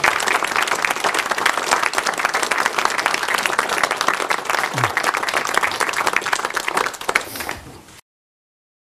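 Audience applauding: a steady spell of many hands clapping that thins out near the end and cuts off abruptly to silence about eight seconds in.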